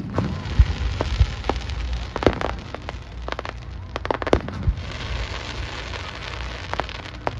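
Aerial fireworks bursting: a string of sharp bangs at uneven intervals over a steady crackling hiss from the shells.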